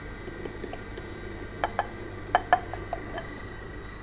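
Glass bowl clinking against the steel bowl of a stand mixer about seven times in the second half as ground almonds are tipped and tapped out into it, over the steady whine of the mixer running on low speed.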